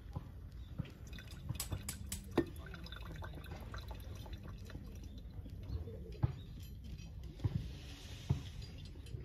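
Hot water poured in a slow, thin stream from a kettle onto coffee grounds in a paper-filtered pour-over dripper, with faint trickling and dripping. A few light ticks are scattered through it.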